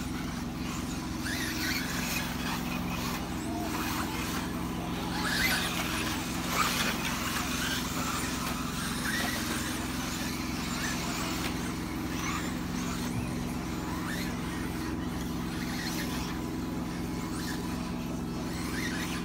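Radio-controlled four-wheel-drive race cars running on the track, their sound rising and falling as they pass, over a steady low hum.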